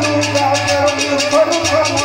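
Live folk music: a sitar melody wavering over a fast, steady rattling percussion beat of about six strokes a second.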